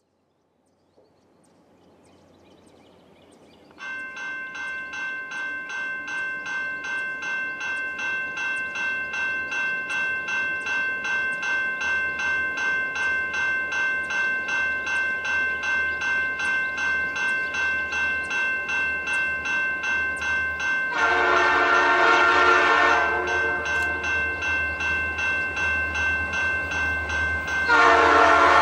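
A bell rings steadily, about two strikes a second, as a train approaches. Over it, a diesel locomotive's multi-note air horn sounds twice, one blast of about two seconds and a second starting just before the end.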